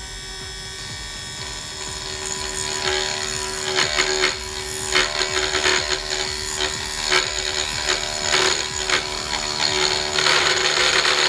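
Stock spindle motor of a hobby desktop CNC mill whining steadily while a 3 mm end mill cuts into iron. Rough, crackling cutting noise builds and grows louder from about three seconds in. This is a spindle that is poor for metals harder than aluminium, so the cut is noisy.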